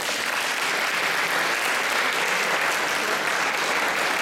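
Audience applauding: many hands clapping in a dense, steady patter that greets the end of a performance.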